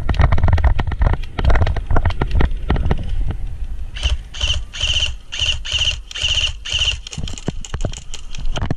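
Airsoft rifle firing a rapid string of short shots for about three seconds, starting about four seconds in. Before that, footsteps on a dirt track and low wind rumble on the helmet camera's microphone.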